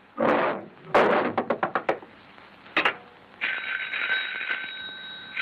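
Cartoon sound effects of a hand-cranked wall telephone: a quick run of sharp ringing strokes about a second in and a single click near three seconds, then a continuous bell-like ringing.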